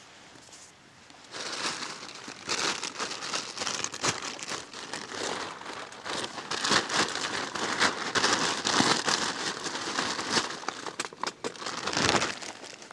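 A plastic bag crinkling and rustling as it is handled and rummaged through. It starts about a second in and goes on in quick, irregular crackles.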